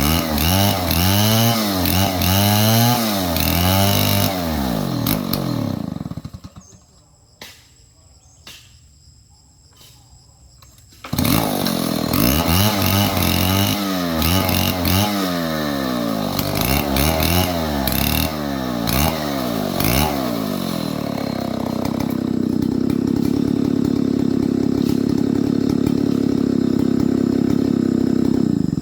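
Stihl 070 two-stroke chainsaw revving up and down again and again, then dropping away to quiet with a few clicks for about five seconds. It comes back suddenly revving, then is held at steady high revs for about seven seconds before cutting off abruptly.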